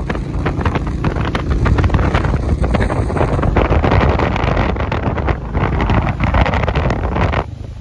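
Heavy wind buffeting on the microphone of a moving motorcycle, with the Royal Enfield's engine running underneath. The sound changes abruptly about halfway through and dips briefly near the end.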